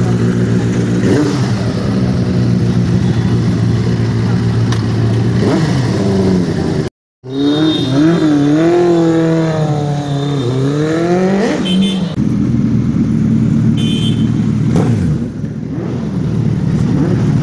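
Motorcycle engines idling and revving: a Benelli TNT 600i idles steadily with a throttle blip or two. After a short break the bike, fitted with an aftermarket IXIL exhaust, is revved up and down several times. Near the end a Suzuki Hayabusa with a Brock's aftermarket exhaust idles steadily.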